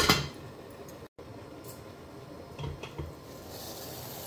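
A glass saucepan lid clatters down onto a stainless steel pot. After a couple of light clinks, water at a rolling boil sets in as a steady hiss about three and a half seconds in.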